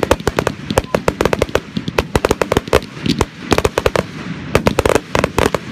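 Aerial firework shells bursting in quick succession: a dense run of sharp bangs and crackles, several a second, with no let-up.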